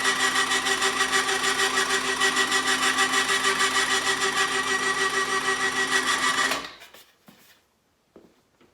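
Motor-driven bead roller running steadily: a motor whine with a fast, even pulse that stops abruptly about six and a half seconds in. A few faint knocks follow.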